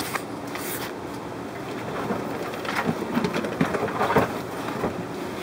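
Steady watery hiss of running aquarium filtration and bubbling water, with scattered light clicks and rustles of handling.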